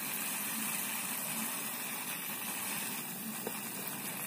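Hand-pump pressure sprayer hissing steadily as it sprays a fine mist of water onto potting soil.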